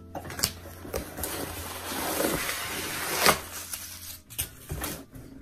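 A cardboard shipping box and its packaging being handled: rustling with a few sharp knocks and taps, the loudest knock about three seconds in.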